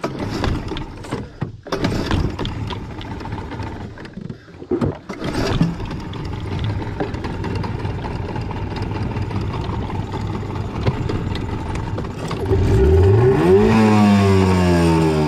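Small outboard motor running, with clattering knocks over it in the first few seconds, then a steady hum. Near the end a rising sweep of tones starts, leading into music.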